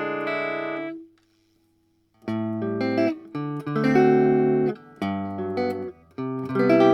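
Electric guitar played through a Bugera V5 small tube combo amp in 1-watt mode. A held chord rings and is cut off about a second in. After a short pause, chords are struck in short phrases, each one stopped short.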